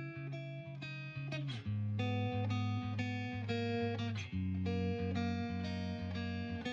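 Background music: plucked guitar playing a steady chord pattern, with a bass line coming in about a second and a half in.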